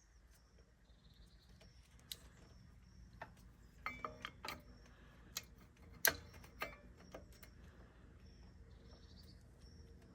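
A few light clicks and knocks from hands working on a bicycle's rear wheel and disc brake caliper, the loudest about six seconds in. Faint bird chirps repeat in the background.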